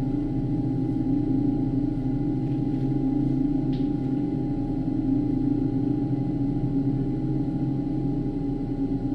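Ambient drone: several low, sustained tones held steady and layered, with no beat and no pauses, resonant like a gong or singing bowl.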